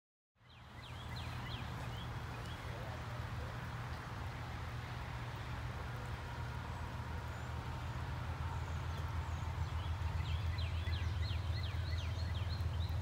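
Low, steady rumble of a distant diesel locomotive engine as a CSX freight train approaches, growing slightly louder. A songbird chirps in quick runs of falling notes near the start and again near the end.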